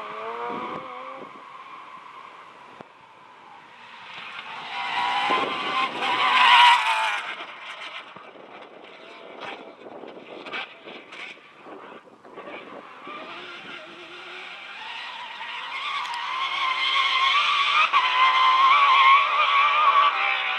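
Off-road rally car driven flat out across a dirt field: the engine at high revs grows to its loudest about a third of the way in, then fades into a run of sharp crackles, and a rising engine note builds up again in the second half.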